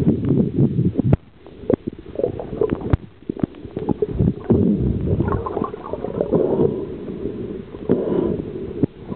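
Muffled water gurgling and sloshing, with scattered short knocks and clicks and a brief lull about a second in.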